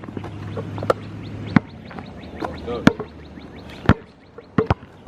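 A basketball bouncing on an outdoor court: about six sharp, irregularly spaced slaps, with two close together near the end.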